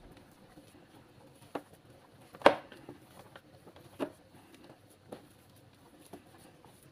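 Hands kneading fish dough into flour in a plastic bowl: soft, irregular patting and squishing, broken by a few short, sharp knocks, the loudest about two and a half seconds in.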